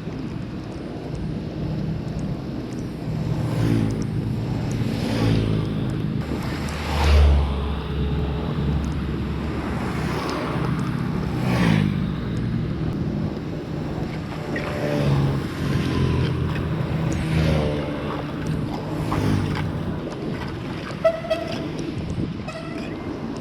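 Road traffic: several vehicles passing one after another, each swelling and fading, with a short horn beep near the end.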